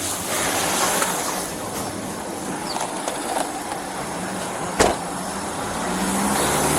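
Steady road and engine noise of a moving car, with one sharp knock about five seconds in.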